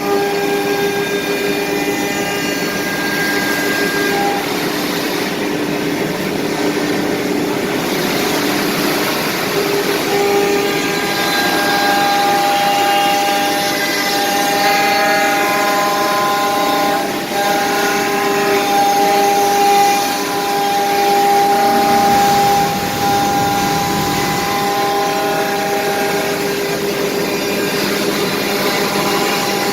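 4-axis CNC router spindle running and cutting wood: a steady whine made of several held tones that change pitch every few seconds as the cut goes on.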